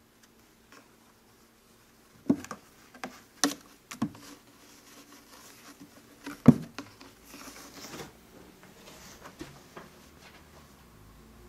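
Kitten scrambling and pouncing inside a carpeted cat tower: several dull thumps and knocks, the loudest about six and a half seconds in, then a soft scratchy rustling on the carpet.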